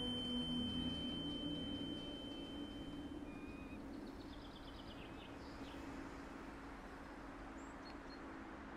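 A high, steady ringing tone stops abruptly about three seconds in. It leaves a faint hiss with a low drone underneath, and a few faint high chirps a few seconds in.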